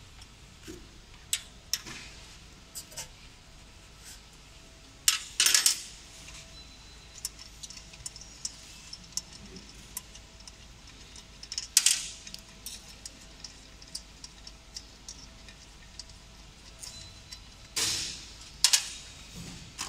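Scattered metallic clicks, clinks and knocks from hands fitting and handling the metal parts of a desktop fiber laser marking machine during assembly. A few louder knocks come about five seconds in, at about twelve seconds and near the end.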